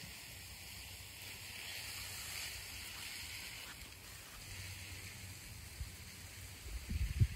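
Faint steady outdoor hiss with low wind rumble on the microphone, and a few louder low bumps near the end.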